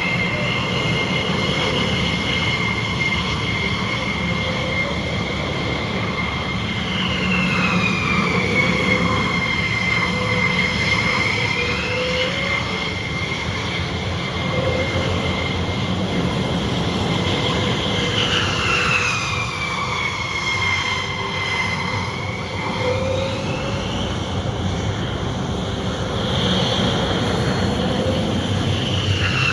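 Jet engines running with a high whine that sweeps down and back up several times, over a steady rumble.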